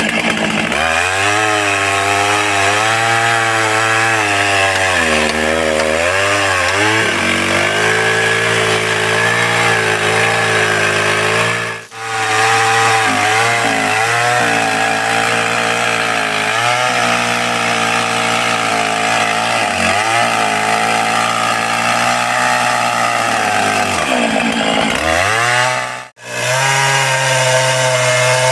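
Stihl MS 661 two-stroke chainsaw running at high revs while cutting into a large tree trunk. Its pitch sags and recovers as the chain loads up in the wood. The sound cuts out abruptly twice, for a moment each time.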